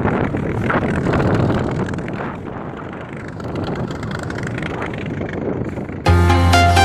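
Wind rushing over the microphone on a moving boat, uneven and gusting. About six seconds in, electronic music with a heavy bass starts suddenly.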